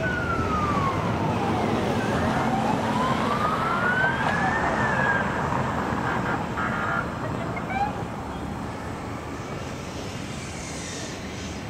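Police siren wailing in slow sweeps, falling, then rising and falling again, over traffic noise. It grows quieter after about seven seconds.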